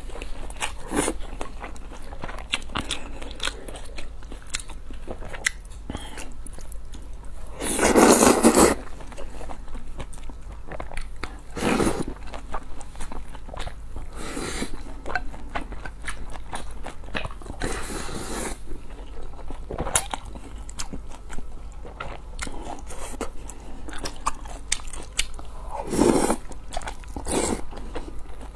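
Close-miked eating: chewing and wet mouth clicks, with several short, louder slurps of glass noodles and sauce, the loudest about eight seconds in.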